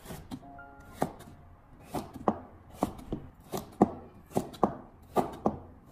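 Cleaver chopping cucumber into small dice on a wooden cutting board: a dozen or so sharp knocks, about two a second, often in quick pairs.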